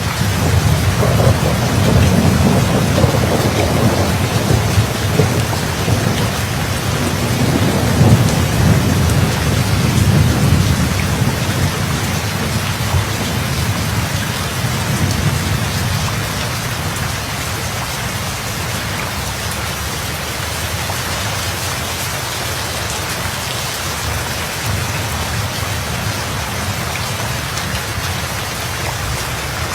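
Steady heavy rain hissing, with a long low rumble of thunder rolling through the first ten seconds or so, swelling twice and fading out, leaving the rain alone.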